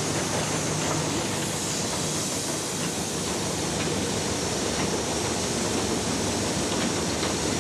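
Automatic PET bottle washing, filling and capping machine running: a steady mechanical noise with hiss and a few faint clicks.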